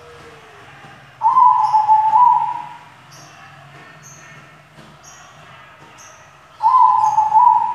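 A white zebra dove (perkutut) cooing: two loud, low, hooting song phrases, each about a second and a half long with a step in pitch, about five seconds apart.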